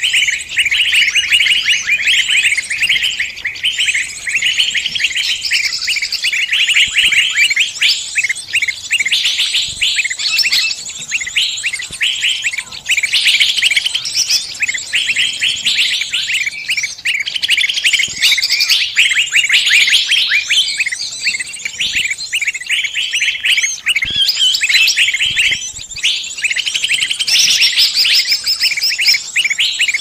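Bird-lure recording of small songbirds: a loud, dense, nearly continuous stream of rapid high-pitched chirps and trills, with a few short breaks.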